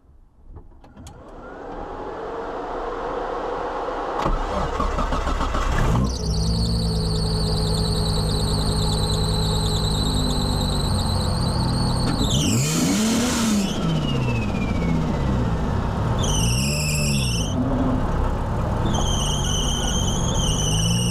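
Nissan Skyline R33's turbocharged RB25DET straight-six running through a screamer pipe, blipped twice past the middle, the revs rising and falling each time, with a burst of rushing noise on the first blip. A high-pitched alternator belt squeal sits over the engine and rises and falls with the revs: the belt is slipping.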